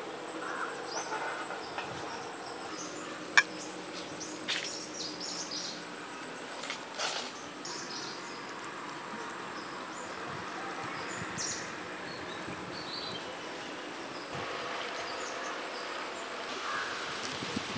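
Outdoor background with birds calling now and then, and a single sharp click about three seconds in.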